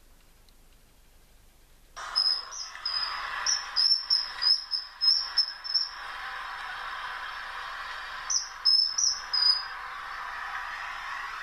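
Recorded common kingfisher calls: short, shrill high whistles, about two a second, over a steady background hiss. They come in a run of about four seconds, then after a pause a shorter run and one last note. The recording starts abruptly about two seconds in.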